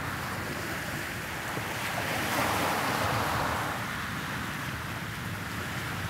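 Gentle surf washing onto a sandy beach: a steady hiss that swells about two seconds in and then eases off.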